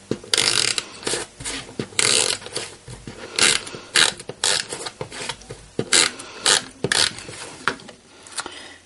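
Patterned cardstock being handled and attached by hand: about a dozen short rasping, ratchety strokes at irregular intervals.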